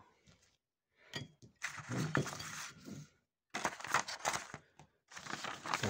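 A sheet of paper being handled, rustling and crackling in three bouts.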